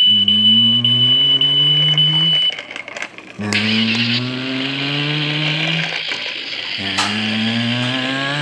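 Toy truck's electronic engine sound effect, a revving sound that climbs in pitch, played three times in a row, each lasting about three seconds. A steady high beep runs under the first rev and stops about two and a half seconds in.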